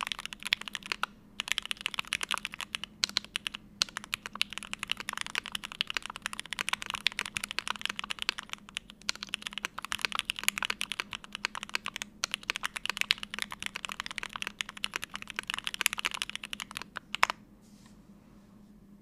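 Mechanical keyboard typing: a Vega board with an aluminium plate, full foam, stock Gateron Oil King linear switches and GMK ABS keycaps, with fast continuous keystrokes and a few short pauses. The typing ends with one louder stroke about seventeen seconds in.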